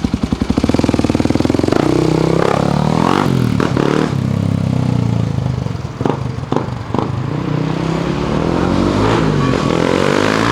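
1998 Kawasaki KLX 250's single-cylinder four-stroke engine through an FMF aftermarket exhaust. It starts at idle with distinct exhaust pulses, then is revved several times, the pitch rising and falling, with a few sharp clicks in between. Near the end it settles into a steadier, higher run.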